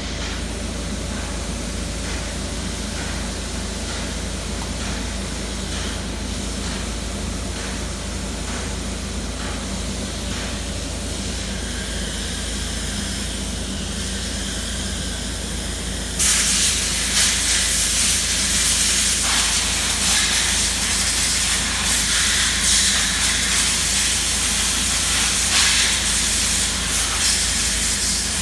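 Steady road and running noise of a car being driven while checking for a suspension noise, mostly a hiss. About halfway through it gets suddenly louder and hissier.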